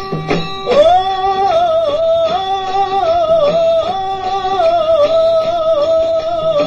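Devotional song: a male voice holds one long, wavering, ornamented note over harmonium accompaniment and light percussion.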